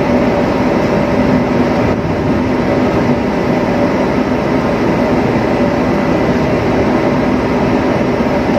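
Steady drone of a ship's deck machinery, a constant rushing hum with a few fixed tones running through it and no change in pitch or level.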